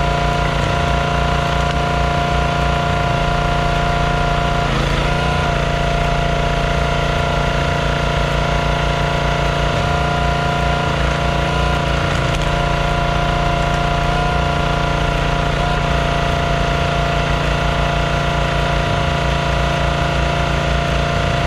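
Small gas engine of a Performance Built hydraulic log splitter running steadily, its pitch dipping briefly a few times while it splits wood.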